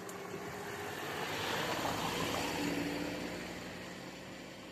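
Škoda Fabia hatchback driving past, its tyre and engine noise swelling as it comes close, about two seconds in, then fading away.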